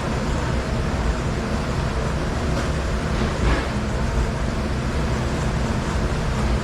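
Dishwasher running: a steady rushing noise over a low hum, with a brief louder swell about three and a half seconds in.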